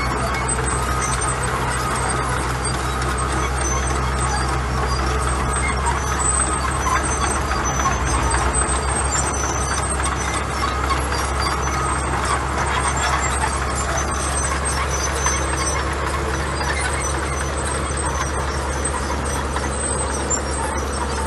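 Diesel engine of heavy earthmoving machinery running steadily under a low drone, with short high squeaks now and then.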